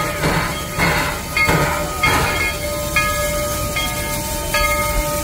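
Steam locomotive chuffing in a steady rhythm, about two exhaust beats a second. From about three seconds in, a steady ringing tone with several overtones takes over, renewed with a click about every 0.8 s.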